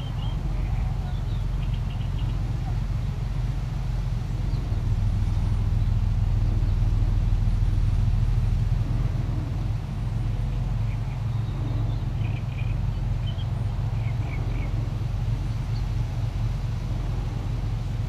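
Steady low rumble of an engine running, swelling between about four and nine seconds in, with faint short high chirps now and then.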